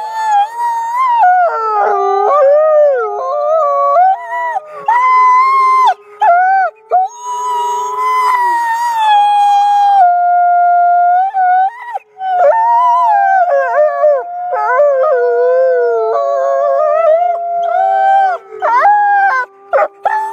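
A pack of wolves howling in chorus: several long howls overlap at different pitches, some held steady and others wavering, bending and breaking off, with brief gaps as voices drop out and come back in.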